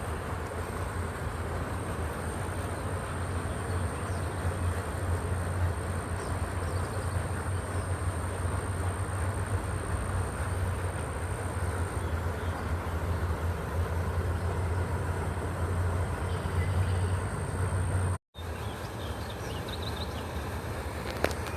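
Steady low rumble with an even hiss above it and a thin, high, steady whine; the sound cuts out for a moment about eighteen seconds in.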